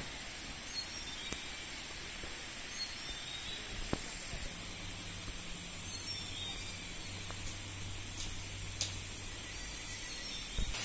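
Steady high-pitched insect drone, like a cicada or cricket, with a few faint chirps and light clicks against a low outdoor background.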